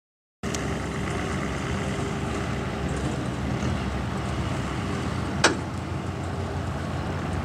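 Pickup truck towing a loaded flatbed trailer driving past at low speed: a steady engine and road hum that cuts in about half a second in, with one brief sharp squeak falling in pitch about five seconds in.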